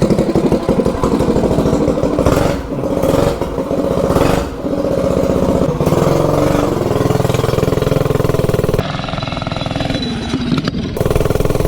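Stage 3 single-cylinder minibike engine running under throttle through an exhaust header with its baffle cover fitted, rising and easing off a couple of times as the bike is ridden.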